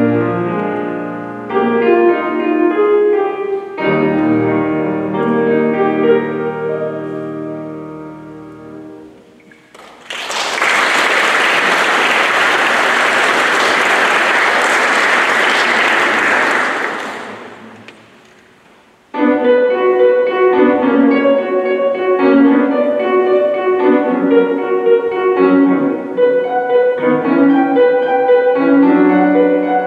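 Piano playing the last chords of a piece, which ring away to nothing. Audience applause follows for about seven seconds and dies down. Then a new piano piece starts about nineteen seconds in, with quick, busy notes.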